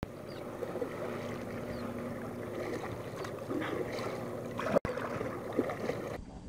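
Water lapping and splashing around a kayak, with wind on the phone's microphone; the sound drops out briefly about three-quarters of the way through and changes near the end at a cut between clips.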